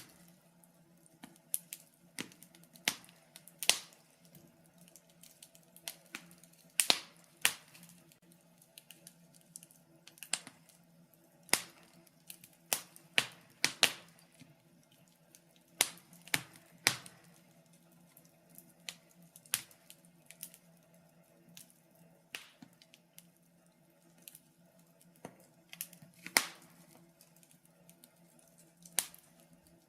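Wood fire in a fireplace crackling, with irregular sharp pops about once a second, some in quick clusters, over a faint steady low hum.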